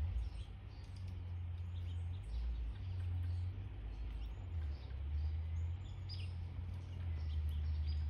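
Scattered short, high bird chirps at the feeders over a loud, uneven low rumble of background noise.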